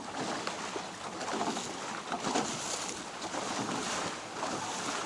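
Wind buffeting the microphone and sea water splashing around a small fishing boat, with an uneven, gusting rush and no engine running.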